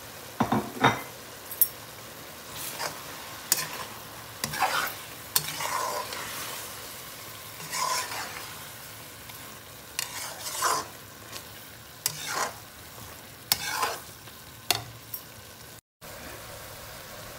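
Chicken and vegetables frying in a pan with a steady sizzle, stirred with a slotted spatula that scrapes against the pan in about a dozen irregular strokes. The sound cuts out briefly near the end.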